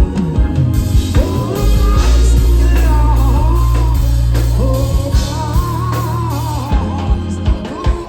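Live reggae band playing, with a lead singer over a heavy bass line and drums.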